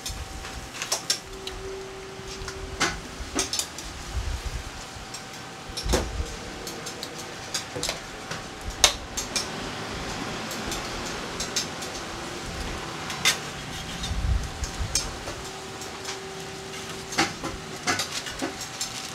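Metal spatula and tongs knocking, clinking and scraping on a steel griddle and a perforated steel tray, in irregular strikes with a few sharper knocks, over a steady sizzle and a faint steady hum.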